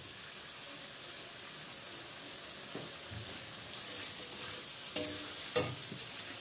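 Chopped tomatoes and spice paste sizzling in a metal kadai while a spatula stirs them through the pan, with two sharper spatula strikes against the pan about five seconds in.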